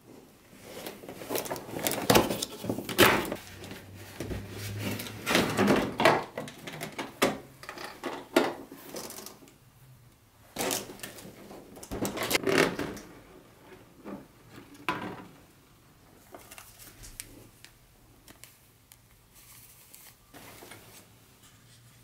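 Cardboard box and clear plastic packaging tray being handled and opened: bouts of rustling, scraping and clicks for the first fifteen seconds or so, then fainter handling.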